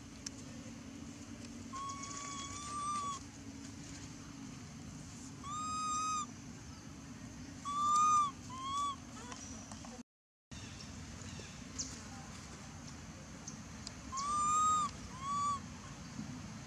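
Infant macaque cooing: clear calls that rise and fall in pitch, in about five bouts, some as a longer coo followed by a short one.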